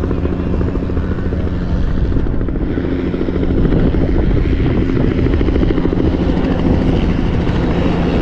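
Aircraft engine droning steadily, growing louder about three and a half seconds in as the aircraft comes closer.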